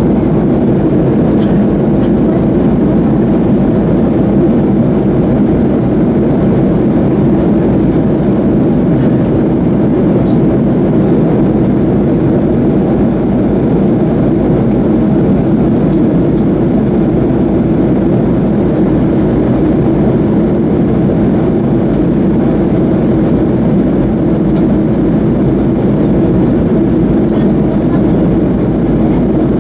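Steady cabin noise inside a Boeing 737-300 in flight: the even drone of its CFM56-3 turbofan engines and the air rushing past the fuselage, unchanging throughout.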